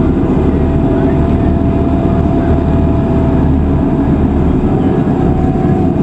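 Shuttle bus running along the road, heard from inside the cabin: a steady, loud engine and road rumble with a faint hum on top.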